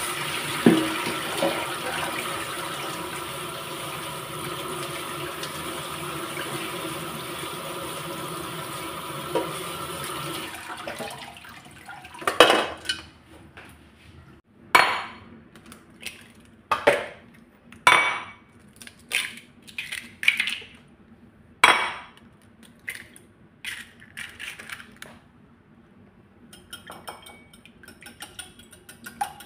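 Tap water running steadily into a stainless steel colander of washed spinach for about ten seconds, then a series of sharp metallic knocks and clatters roughly a second apart as the colander is handled in the sink. Near the end, quick light clicking of a wire whisk beating eggs in a bowl.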